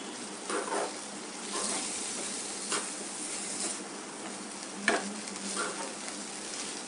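Sliced onions and vegetable strips sizzling in oil in a metal karahi while a metal spatula stirs and scrapes them, in several short swishes, with a sharp clink of spatula on pan about five seconds in.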